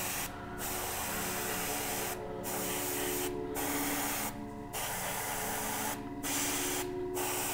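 Airbrush spraying thinned acrylic paint in short passes: a steady hiss that cuts off briefly about six times as the trigger is let go between strokes. A steady low hum carries on underneath.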